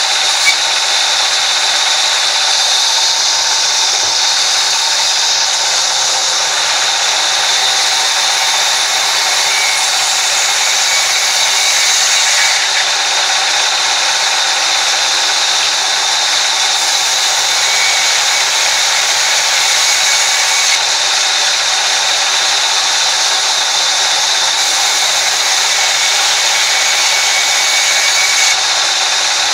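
Horizontal band sawmill running steadily while its blade cuts lengthwise through a log, a continuous high hiss of sawing.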